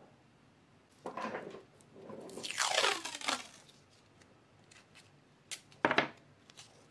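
Close handling noises: a short rustle about a second in, then a louder rustling scrape lasting about a second and a half, and two sharp clicks near the end.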